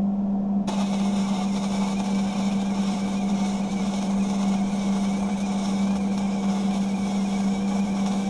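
Welding arc sizzling steadily as weld is laid onto a joint to fill a gap, starting abruptly under a second in, over a constant low hum.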